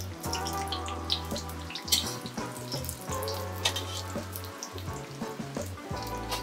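Oil sizzling and crackling under semolina-coated chicken kebabs as they shallow-fry on a flat griddle, with scattered sharper crackles.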